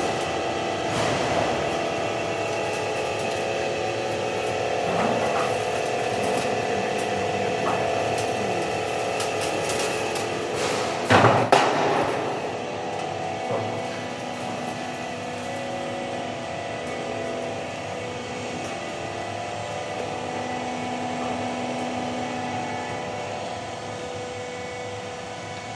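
IT5 roofing-sheet roll forming machine running with a steady multi-tone mechanical hum. A loud clatter of impacts lasting about a second comes about eleven seconds in.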